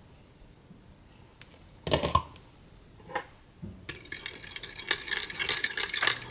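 A utensil knocks against a mixing bowl about two seconds in, then from about four seconds a fast, dense clinking of whisking in the bowl that stops abruptly near the end, beating buttermilk into eggs.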